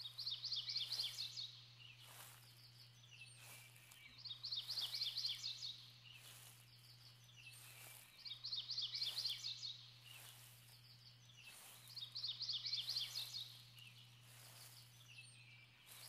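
A songbird singing a rapid, high trill of quick notes, repeated about every four seconds, with a faint steady low hum underneath.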